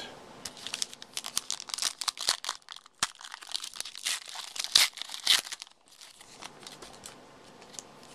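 A trading-card pack wrapper being torn open and crumpled by hand: a dense run of sharp crinkling and crackling that stops about six seconds in, leaving only faint handling of the cards.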